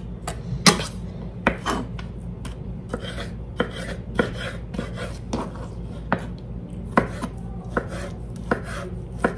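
Chef's knife chopping a poblano pepper on a wooden cutting board: irregular knocks of the blade against the board, about two a second.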